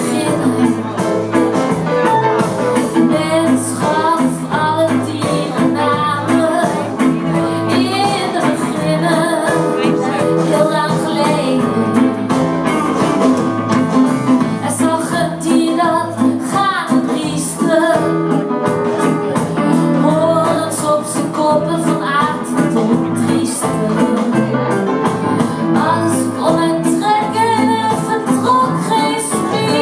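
Live band performance: a woman singing into a microphone over electric guitars, bass and electric keyboard, with a steady beat.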